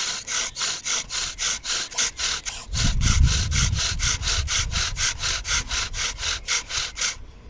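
Bow drill at work: the wooden spindle grinding in the burned-in notch of a dry wooden hearth board as the paracord-strung bow is sawn back and forth, a rapid rasping of about four strokes a second that stops suddenly near the end. The hearth has been broken in, and the speaker says its sound changes completely once that is done. A low rumble comes in about three seconds in.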